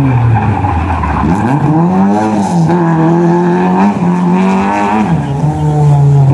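Lada saloon's engine being driven hard, its revs climbing and falling several times as it works through a tight slalom.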